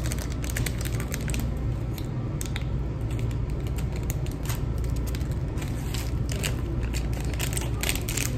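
Small plastic seasoning sachets crinkling as they are torn open and shaken out over a paper cup, giving a dense run of irregular crackles over a steady low hum.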